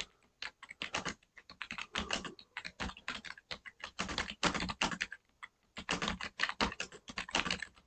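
Typing on a computer keyboard: rapid, irregular key clicks coming in quick runs with short pauses between them.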